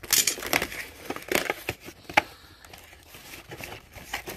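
A small cardboard box being opened by hand: irregular rustling and crinkling of cardboard and packaging, with a sharp snap about two seconds in.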